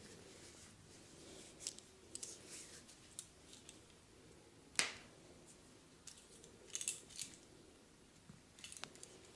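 Joints cracking during a massage: scattered short, sharp clicks, with one much louder crack near the middle.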